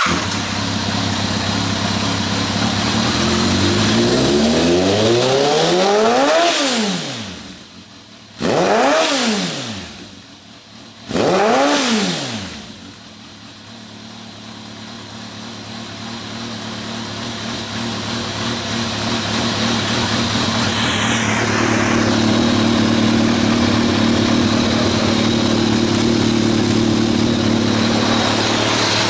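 Kawasaki ZRX1200R inline-four running through a Nojima stainless full exhaust with a carbon silencer. It fires up and idles, is revved once about four seconds in, blipped twice more in quick succession a few seconds later, then settles back to a steady, lumpy idle.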